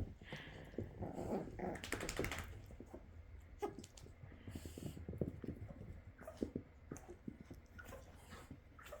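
One-month-old puppy sneezing, a short sharp burst about two seconds in, amid scattered light clicks and scuffles of puppies at play.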